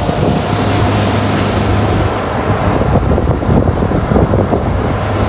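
Wind buffeting the microphone on a small boat moving across a lake, a steady low drone under it, the buffeting heaviest in the middle.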